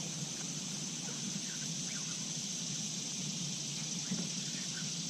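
Steady outdoor background: a constant high insect drone with a low hum under it and a few faint clicks.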